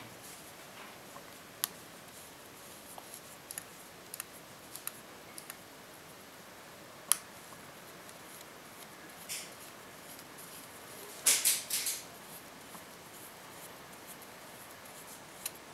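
Faint scattered clicks at irregular intervals, one sharper about seven seconds in, and a brief scraping rustle about eleven seconds in, over a low steady hiss.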